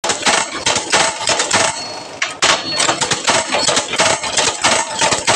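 Automatic 8-gauge wire ring-making machine running, with rapid, irregular metallic clattering and clanking several times a second. There is a brief lull about two seconds in.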